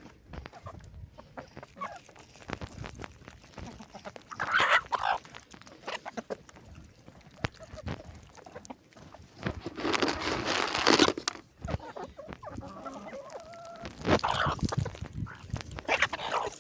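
Chickens clucking in irregular short bursts, the loudest and longest about ten seconds in.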